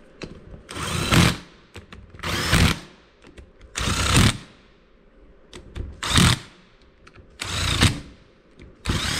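Cordless power driver run in short bursts of about half a second, six times with a second and a half to two seconds between, spinning in socket-head bolts on a two-stroke kart engine's gearbox housing cover with only a little trigger.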